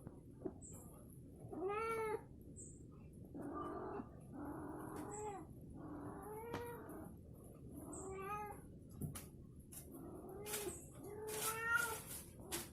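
A cat meowing over and over, about ten drawn-out meows, each rising and then falling in pitch.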